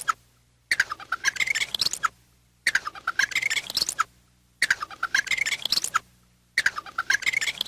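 Squirrel chattering: bouts of rapid chirps about a second and a half long, each dipping in pitch and then rising, repeating the same way about every two seconds with short silent gaps, like a looped call.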